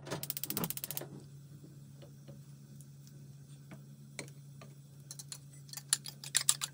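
Chopsticks beating eggs in a ceramic bowl: quick tapping that builds up near the end. A second of fast, even clicking comes at the start, over a steady low hum.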